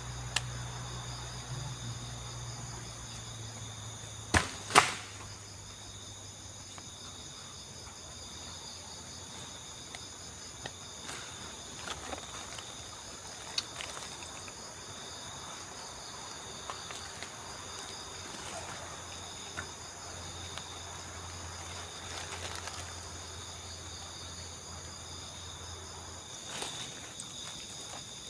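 Steady chorus of night insects chirring, crickets among them, with two sharp knocks close together about four seconds in and a few faint clicks after.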